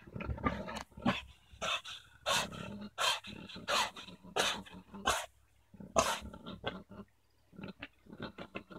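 Boar's courtship grunting, a run of short, sharp grunts about every two-thirds of a second as he noses at a sow lying down. The grunting stops about six seconds in, and a few faint clicks follow near the end.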